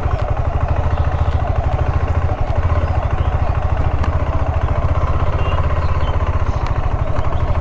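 KTM 390 Adventure's single-cylinder engine running at low, steady revs as the bike moves off slowly, with a fast even pulse and no revving.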